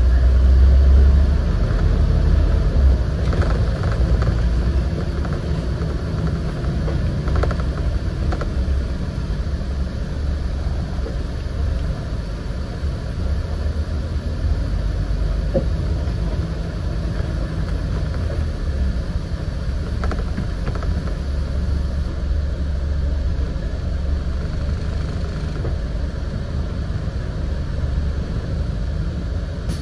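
Scania N94UD double-decker bus heard from inside while it drives: a steady low engine and road rumble that swells near the start and again about two-thirds of the way through, with a few light rattles a few seconds in.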